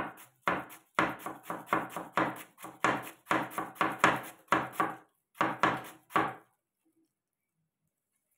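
Kitchen knife shredding a cabbage on a wooden chopping board: quick, even chops at about four a second, stopping about six and a half seconds in.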